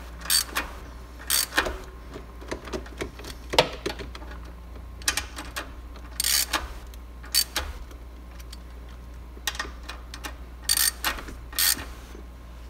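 A hand socket ratchet with an extension clicking in short bursts of rapid ticks, with pauses between, as it turns the bolts at the base of a Corvette's manual-transmission shifter.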